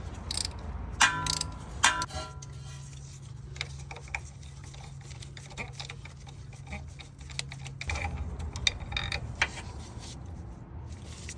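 Hand ratchet clicking as a lower engine mount bolt is worked loose, with two ringing metal clinks about one and two seconds in.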